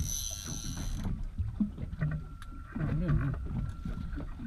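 Steady low rumble of wind on the microphone on a small boat at sea. A brief high-pitched whine sounds in the first second, and a short voice comes in about three seconds in.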